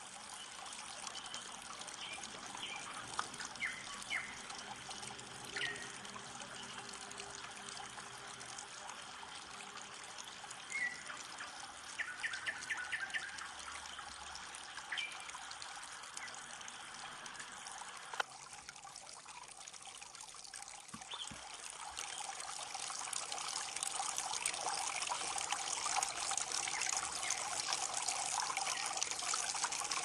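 Water of a small stream trickling and splashing over a log, frothing into bubbles, with a few short bird chirps in the first half. The flow grows steadily louder over the last third.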